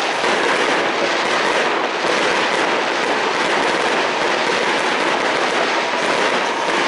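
Fireworks going off in a dense, steady stream of rapid crackling and popping, with no single standout bang.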